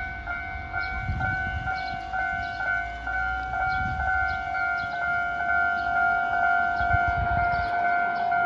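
Level crossing warning bell ringing steadily in a two-tone electronic ding, about two strikes a second, with a few short low rumbles beneath it.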